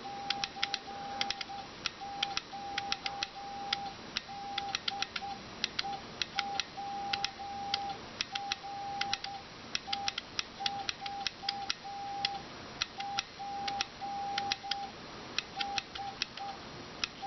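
HF transceiver's CW tone sending Morse code slowly by hand: one steady beep keyed on and off in dots and dashes, with a sharp click at the start and end of each element.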